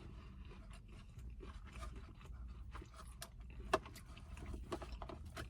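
Quiet chewing of a mouthful of soft banana bread: scattered small mouth clicks, with one sharper click a little under four seconds in, over a low steady hum.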